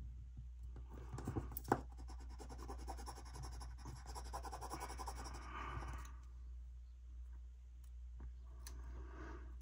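Metal tweezers and fingers scratching and rubbing against paper and sticker stock: a rapid rasping that starts about a second in and runs for about five seconds, with one sharp click near its start, then a shorter rub near the end.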